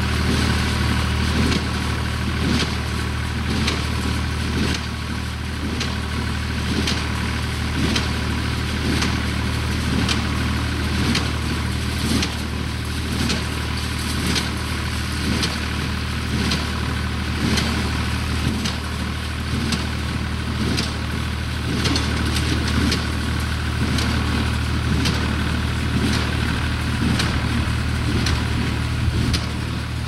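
Tractor engine running steadily while pulling a Case 230 small square baler through hay, with the baler's plunger knocking in a regular rhythm about once a second.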